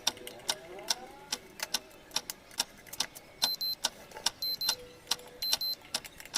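A run of sharp, irregularly spaced clicks and light taps, about two or three a second, with a few faint brief tones among them.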